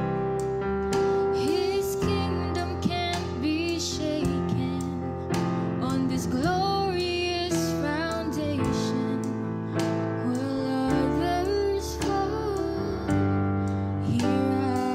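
A young woman singing into a handheld microphone over an instrumental accompaniment.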